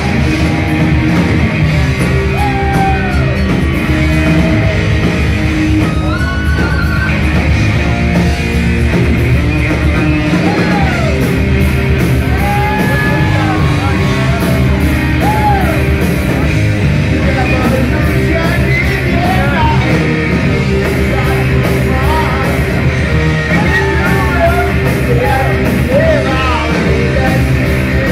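Rock music with a singing voice over a dense, steady band backing.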